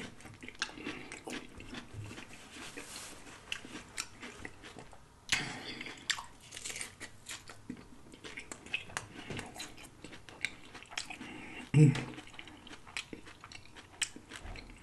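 Close-miked crunching and chewing of loaded shrimp nachos, the tortilla chips crackling in a run of crisp crunches, with a louder bite about five seconds in. A short vocal sound comes near twelve seconds in.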